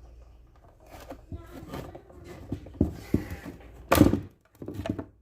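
Irregular knocks and clunks of hand work on a blender's switch being prised out of its housing, where it was stuck tight. The loudest clunk comes about four seconds in, with another near the end.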